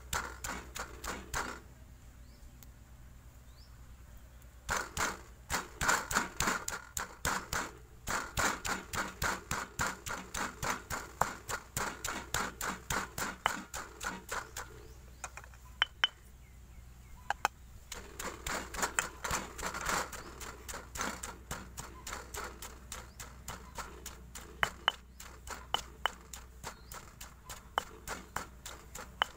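Stone pestle pounding garlic and chilies in a heavy stone mortar: a steady run of knocks about three a second, pausing briefly twice.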